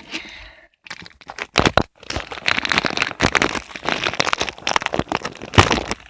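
Plastic packaging crinkling and crackling as it is handled, a dense run of crackles starting about a second in.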